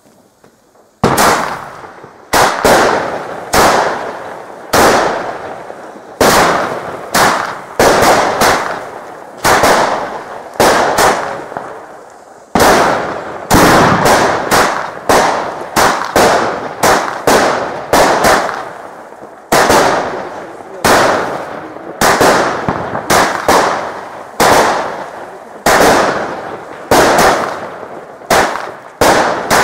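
Firework battery firing a long run of loud report shots, starting about a second in: roughly one bang a second with a few quick doubles, each followed by a short echoing tail.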